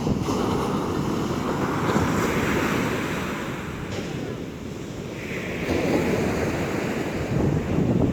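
Rough sea surf breaking and washing, swelling and easing, with strong wind buffeting the microphone.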